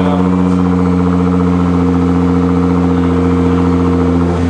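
Nissan R35 GT-R's twin-turbo V6 idling steadily through a titanium catback exhaust with its valves open, on its first run with the new system. The tone shifts slightly and gets a little quieter near the end.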